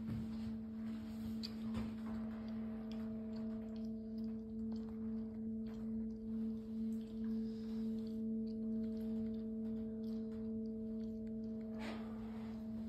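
A steady, pitched hum with a couple of fainter overtones above it, holding one pitch throughout, with light rustles of movement near the end.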